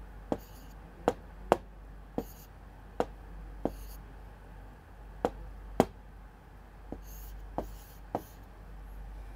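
Someone drawing on a writing board: about a dozen sharp, irregular taps as the tip touches down, with short scratchy strokes in between.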